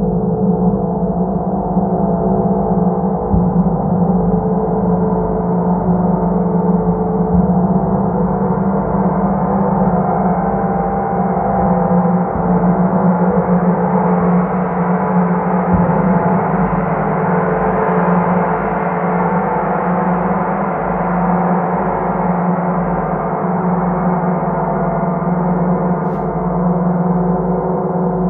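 Large gong played with a felt mallet in soft, repeated strokes, building a continuous ringing wash with a strong low hum. The upper shimmer swells toward the middle and eases off near the end.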